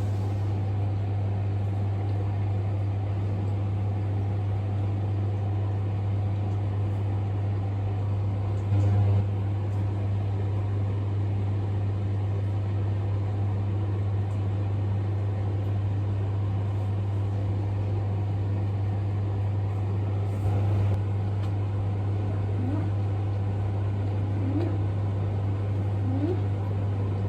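Steady low mechanical hum, louder for a moment about nine seconds in; near the end a few short, faint rising chirps.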